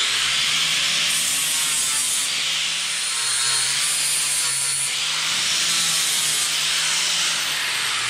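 Angle grinder running against the painted steel of a dump truck body, grinding the paint off down to bare metal, with a steady harsh grinding noise over the motor's hum. Near the end it is released and its whine falls away as it spins down.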